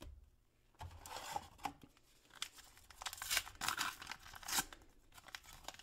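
Trading-card pack wrapper being torn open by hand, with crinkling of the wrapper. It comes in irregular rasps that start about a second in and are loudest in the second half.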